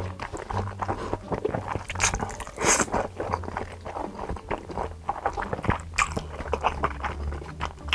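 Close-miked wet eating sounds: black bean sauce noodles slurped and chewed with smacking mouth noises, including a couple of longer slurps about two and three seconds in.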